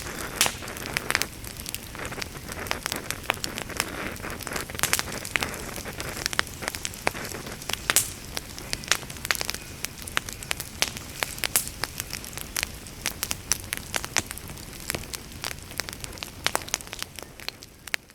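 Campfire crackling: irregular sharp pops and snaps over a soft hiss, fading out near the end.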